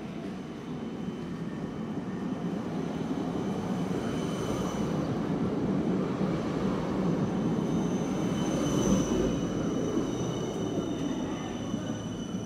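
Red Siemens Combino low-floor tram running past on street track: a rolling rumble that swells to its loudest about nine seconds in, then eases, with a steady high-pitched whine over it.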